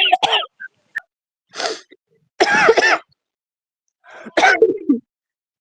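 Smoker's cough: a run of three or four separate short, harsh coughs with pauses between them.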